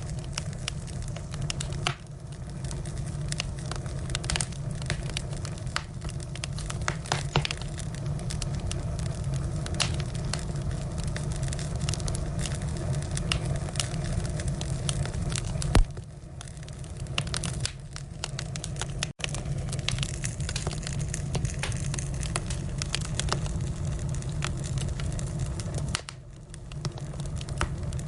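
Firewood burning, crackling with frequent small pops and snaps over a steady low rumble. One sharper pop comes about sixteen seconds in.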